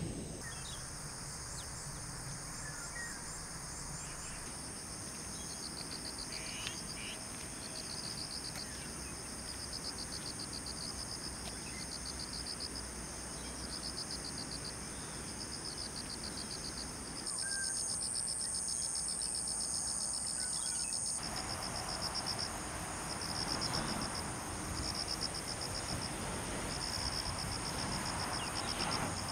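Crickets and other field insects chirping continuously: a steady high buzz under a pulsed chirp that repeats about every second. A louder, higher trill joins for about four seconds midway.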